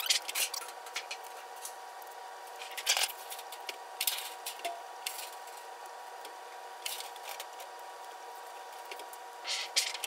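Galvanized sheet metal being slid into and folded on a manual sheet metal brake: scattered scrapes and clicks of metal on metal, the strongest about three seconds in and near the end, over a steady hum.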